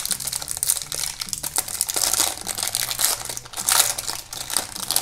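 Crinkly plastic wrapper of a small surprise packet being crumpled and pulled open by hand, giving a dense, close crackling throughout.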